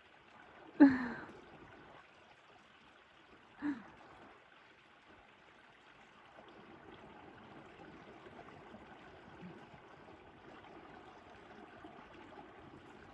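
Two short vocal exclamations, a loud one falling in pitch about a second in and a fainter one near four seconds, over a steady low rushing noise.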